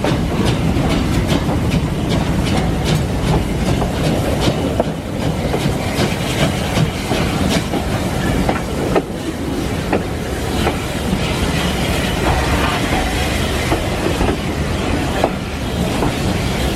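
Railway carriage running along the line: a steady rumble with the wheels clicking over rail joints.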